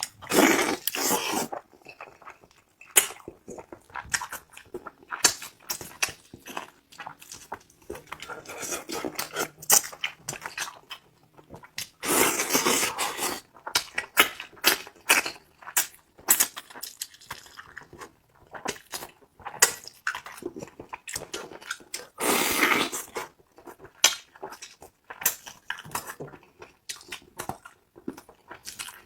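Close-miked eating sounds: a person chewing and biting, with many wet clicks and smacks. Three louder, noisier stretches come near the start, about twelve seconds in and about twenty-two seconds in.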